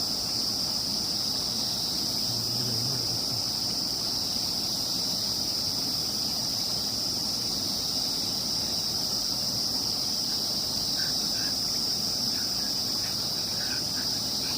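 Steady, shrill insect chorus: one unbroken high-pitched drone throughout, with a few faint short chirps near the end.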